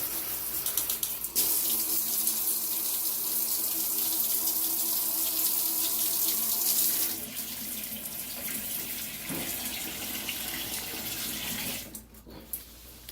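Water spraying from a HOPOPRO 6-function handheld shower head, a steady hiss of running water. The spray gets quieter about seven seconds in and stops near the end.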